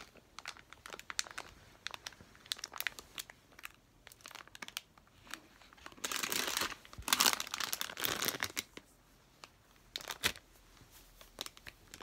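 A plastic gummy-candy bag crinkling as a baby handles it: scattered crackles, with a longer, louder bout of rustling about six to eight seconds in.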